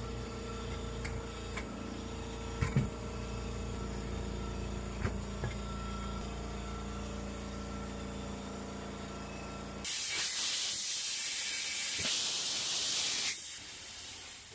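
A steady engine-like hum with a few sharp clicks, then an abrupt loud hiss of compressed air about ten seconds in that lasts around three and a half seconds and drops to a fainter hiss, as in air work on a tire.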